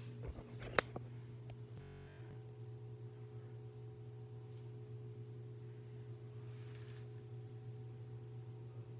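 A steady low hum made of several fixed tones, with one sharp click just under a second in and a fainter one shortly after.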